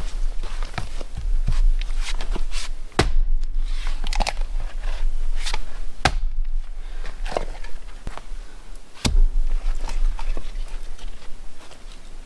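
Firewood being split with an axe: three heavy blows about three seconds apart, with smaller knocks and crunching of wood between them.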